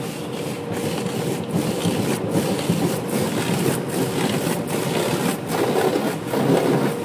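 Automatic car wash working over the car, heard from inside the cabin: a steady rushing of water and soap on the windshield and body, dipping briefly about once a second.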